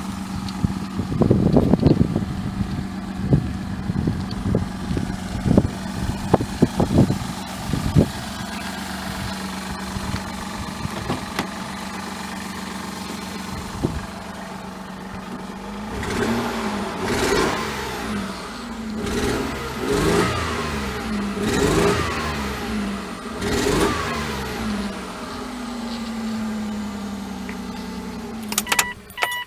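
2000 Mazda MPV's 2.5-litre V6 idling unevenly with irregular sharp puffs, then revved about five times and dropping back toward idle. The uneven running and puffing are the signs of the engine misfire and the leaking exhaust manifold the owner reports.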